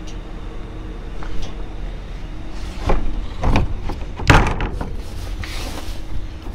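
Rummaging through trash in a dumpster: plastic bags and cardboard rustling and knocking in a few short bursts, the loudest about four seconds in, over a steady low hum.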